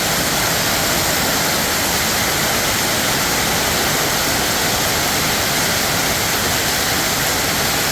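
Heavy rain and rushing floodwater, a steady loud rush of water.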